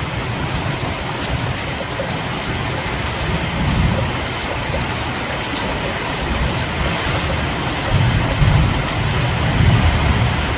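Steady heavy rain, with low rumbles swelling a few times: about four seconds in and twice near the end.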